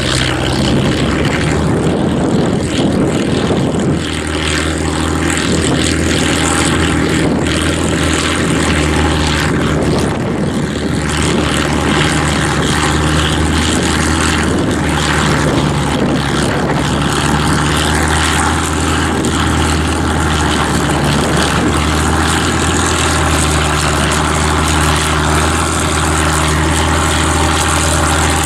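Farm tractor's diesel engine running steadily under load while ploughing, a steady engine note throughout. Wind buffets the microphone over the first few seconds.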